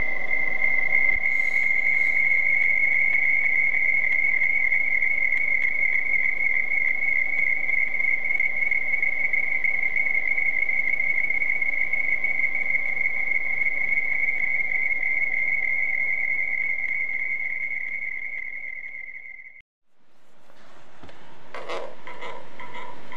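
A steady high-pitched trilling tone with a faint fast flutter, over a low hiss. It fades out to a brief silence about twenty seconds in, then a scratchy texture with scattered clicks fades back in near the end.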